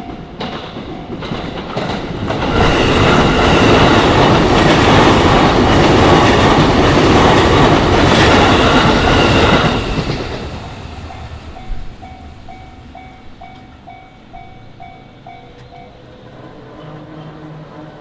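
A JR electric train passing over a level crossing, its wheels clattering loudly for about seven seconds, with the crossing's warning bell ringing in a steady repeating kan-kan. The bell carries on after the train has gone and stops shortly before the end.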